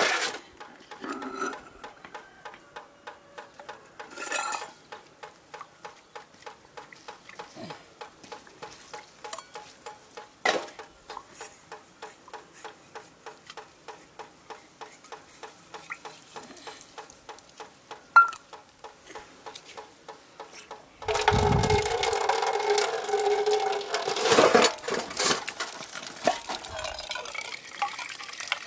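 A metal utensil stirring food in a cooking pot in an even rhythm of about three to four strokes a second, with an occasional knock against the pot. About three-quarters of the way in it turns much louder, with clattering and sizzling.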